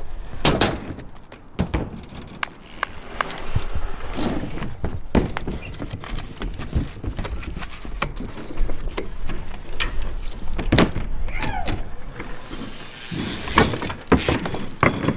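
BMX bikes rolling and scuffing over concrete skatepark surfaces and ramps, with many sharp knocks and clatters from the bikes, and a few short tyre squeaks.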